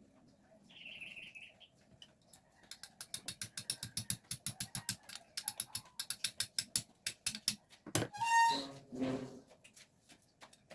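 A ratchet wrench clicking fast and evenly, about eight clicks a second, for roughly five seconds. Near the end comes a short high-pitched squeal, then a brief lower-pitched sound.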